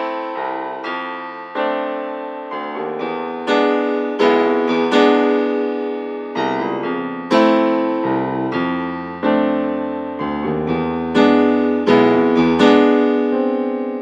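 Piano music: notes and chords struck about once a second, each left to ring and fade.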